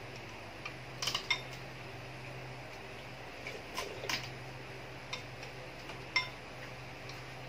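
A metal spoon clinking lightly against dishes, a handful of short clinks at uneven intervals, over a steady low hum.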